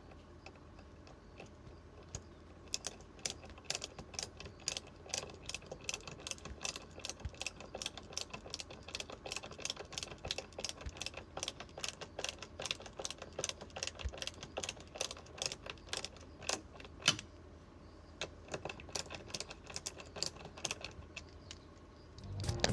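Rapid, irregular light clicks and taps, several a second, with one sharper click about two-thirds of the way through.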